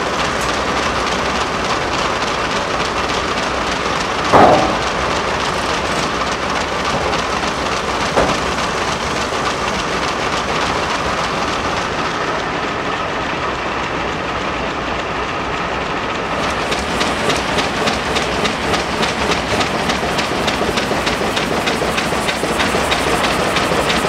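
Steam-powered sawmill machinery running with a fast, steady clatter. There is one loud bang about four and a half seconds in and a smaller knock at about eight seconds.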